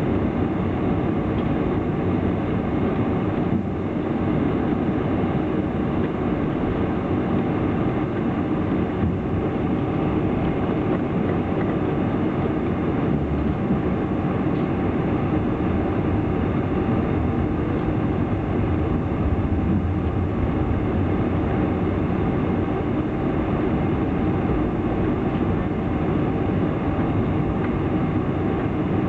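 Steady cabin noise inside a four-engined Boeing 747 taxiing: the engines running at low power under a continuous low rumble of the wheels rolling over the taxiway.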